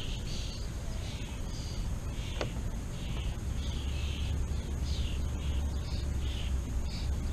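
Birds calling repeatedly, short high calls about one every half second to a second, with a low steady hum setting in about three and a half seconds in.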